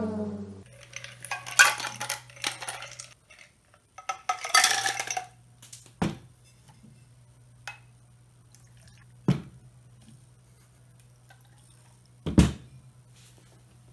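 Drinkware handled on a tabletop: clattering and clinking for the first few seconds, some liquid pouring, then three single knocks a few seconds apart as the tin cups and glass bottle are set down.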